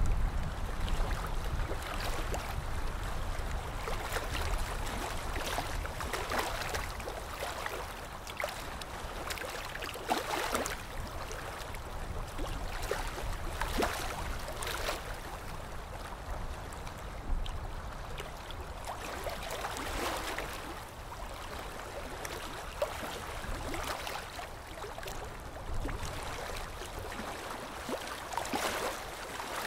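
Water sloshing and splashing in irregular surges every second or few, over a steady low rumble.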